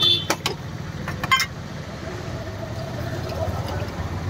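Steel cups and tin lids clinking sharply a few times in the first second and a half, over a steady low rumble of road traffic.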